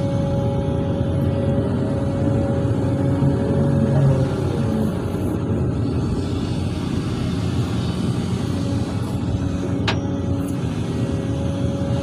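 A SANY hydraulic excavator's diesel engine runs steadily under load, heard from the operator's cab, as it digs and swings a load of soil. A steady high whine sits over the engine and drops in pitch briefly about four seconds in.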